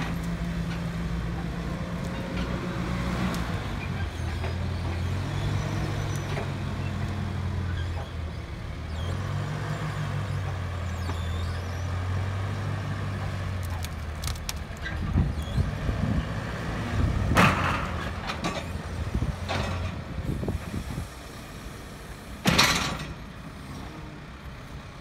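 Caterpillar 427F backhoe loader's diesel engine running under load, its pitch rising and falling as the machine works. In the second half, wooden and sheet-metal debris crashes and cracks under the loader's bucket several times, loudest once past halfway and again a few seconds before the end.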